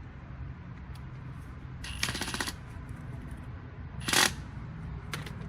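Hand tools working metal on a seized lawnmower part: a quick rattle of clicks about two seconds in, then a single short, loud scrape or clank about four seconds in.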